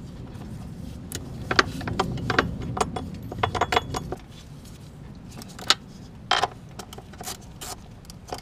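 Metal hand tools clinking as a ratchet and socket work a bolt, in scattered sharp clicks at an uneven pace. A low hum runs underneath and drops away about four seconds in.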